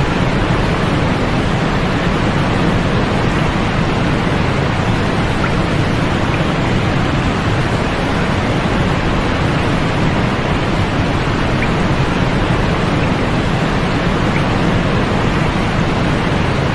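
Steady white-noise sleep track: an even, unbroken hiss, fuller in the low and middle range than in the highs, with no change or events.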